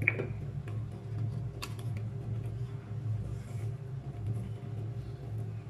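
Small clicks and taps of a plastic baking soda container and a plastic measuring spoon being handled, a sharp click right at the start and another about a second and a half in, over a steady low hum.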